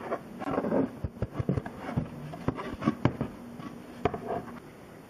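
Handling noise of a sheet of black card being picked up and moved about on a workbench: irregular rustling, scraping and light knocks, the loudest about a second in and again about three seconds in, over a faint steady hum.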